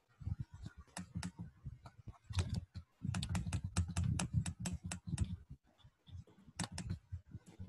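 Laptop keyboard typing and clicking: a scatter of quick key presses, with a dense run of them in the middle, as someone works a computer to bring up a video.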